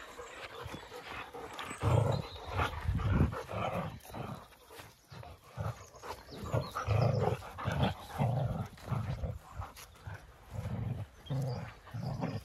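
A German Shepherd and a black puppy play-fighting, with short growls, grunts and mouthing noises coming in irregular bursts about a second apart.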